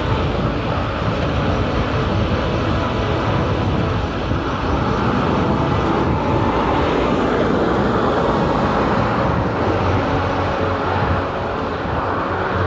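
Steady rush of wind on the microphone and tyre noise from a bicycle rolling along a tarmac road.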